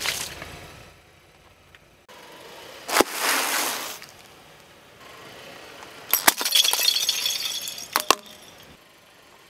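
A car tyre rolling over a bag of puffed corn snacks: a sharp pop about three seconds in, then about a second of crunching. From about six seconds the tyre crushes plastic puzzle cubes, giving two seconds of dense cracking and crackling with a last sharp crack near the end.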